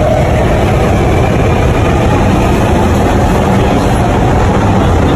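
Sydney Metro train heard from inside the carriage while it is in motion: a steady, loud running rumble from the train and its wheels on the rails.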